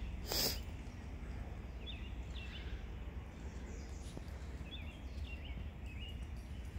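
A few faint, short bird chirps in woodland, one cluster a couple of seconds in and another near the end, over a steady low rumble. A brief sharp noise sounds just after the start.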